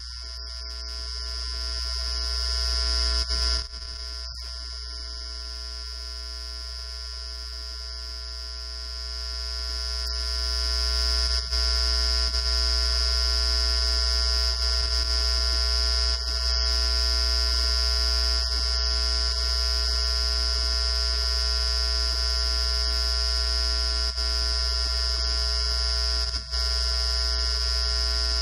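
Steady electrical hum with a thin high whine above it, growing louder about a third of the way in and then holding steady.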